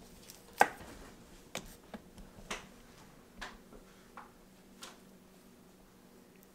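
Knife blade clicking and tapping against a wooden butcher block while trimming elk meat: about eight short, sharp, irregular clicks, the loudest about half a second in, over a faint steady hum.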